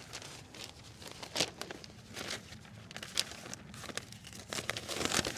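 A sheet of newspaper being handled, rustling and crinkling in a run of irregular crisp crackles.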